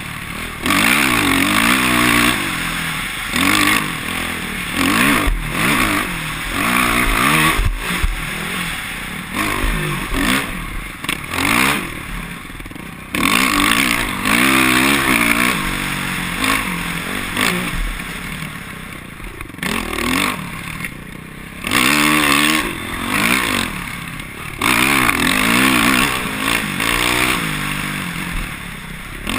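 Off-road dirt bike engine revving up and down over and over as it rides a rough dirt trail, the pitch rising and falling every second or two.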